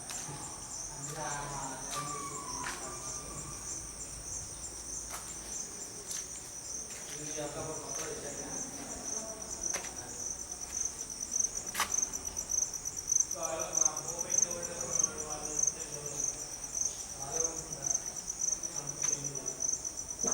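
Steady insect chorus: a dense, rapidly pulsing high-pitched trill, with faint distant voices underneath.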